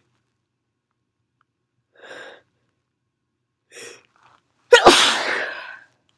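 Two short breathy intakes as a sneeze builds, then one loud human sneeze about three-quarters of the way in, set off by sprayed perfume.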